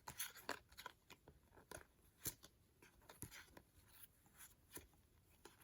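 Faint, irregular clicks and soft slides of trading cards being flipped through by hand, one card after another.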